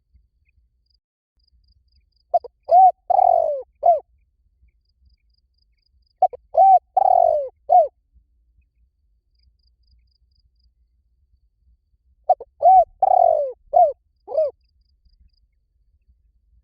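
Spotted dove cooing: three phrases a few seconds apart, each a quick run of four or five low coo notes with a longer drawn-out note in the middle.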